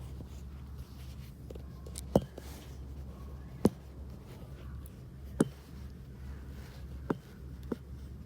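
Budgies' beaks tapping and pecking: five sharp taps about a second or two apart, over a steady low hum.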